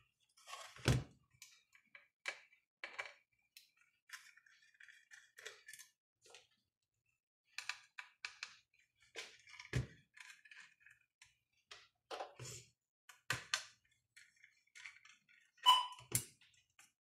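Scattered light knocks and clicks of circuit boards and parts being handled on a workbench, with a louder thud about ten seconds in and a short ringing clink near the end.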